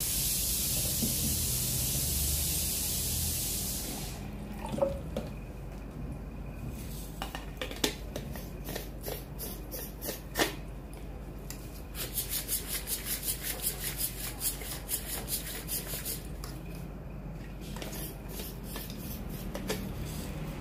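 Stainless steel alkaline water bottle (Eostre PI cup) being handled: a hiss for the first few seconds, then scattered clicks and knocks of the metal lid and body, and for several seconds in the middle a run of quick rattling strokes, about five a second, as the bottle is shaken.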